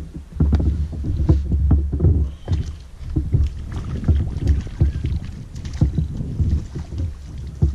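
Irregular heavy thumps and knocks from a bass boat's deck and hull as a hooked fish is fought and netted beside the boat, with scattered sharper clicks and rattles from the landing net and gear.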